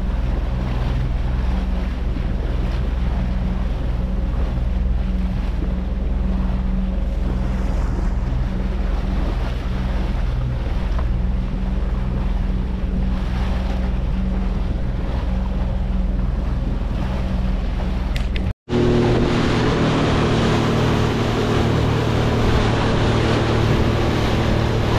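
Boat engine running steadily under way, with wind on the microphone and rushing water. Near the end the sound cuts out for a moment, and the engine hum comes back at a different, slightly higher pitch with louder water noise.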